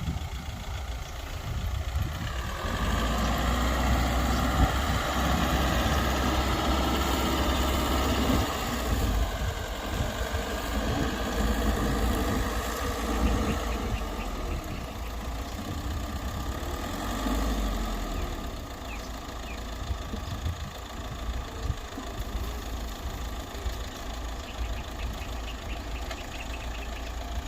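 Diesel engine of a Mitsubishi BD2G crawler bulldozer working: the engine note rises and grows louder about two seconds in, holds under load, dips about nine seconds in, then settles back to quieter running in the second half.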